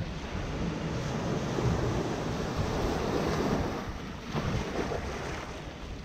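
Small Mediterranean waves washing in over shallow sand and swirling against the rocks of a breakwater. The surge swells over the first few seconds, eases about four seconds in, then builds again.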